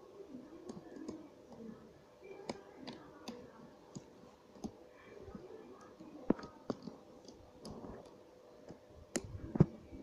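Plastic Lego pieces clicking and knocking as the Lego toy gun is handled: scattered light clicks, with louder knocks about six seconds in and near the end.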